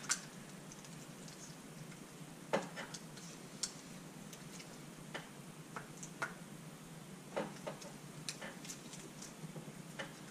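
Irregular light clicks and metallic taps from hands fitting small parts on a motorcycle engine's aluminium casing, about a dozen scattered through, with no steady rhythm.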